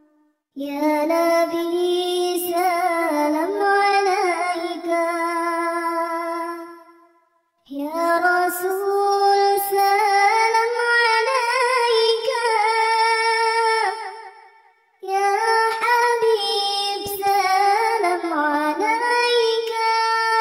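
A high, child-like voice singing a melismatic shalawat melody, a devotional song in praise of the Prophet Muhammad, in three long phrases with ornamented, wavering pitch, each ending on a held note.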